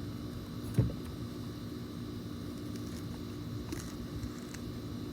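Steady low hum, with a single soft thump about a second in and a few faint light clicks later, from hands handling the cup.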